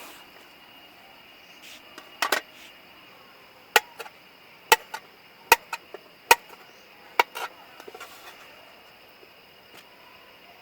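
Knife chopping on a cutting board: about eight sharp, irregular chops over a few seconds. Beneath them is a faint steady chirring of insects.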